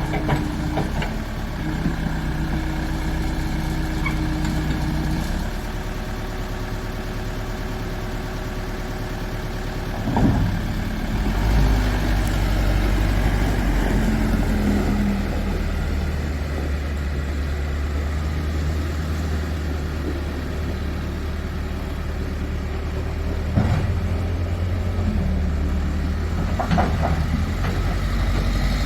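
New Holland LB 95 B backhoe loader's diesel engine running steadily, its low drone growing heavier about eleven seconds in, with a few sharp knocks.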